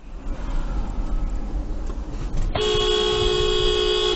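Engine and road noise heard from inside a moving car. About two and a half seconds in, a car horn starts and is held down steadily.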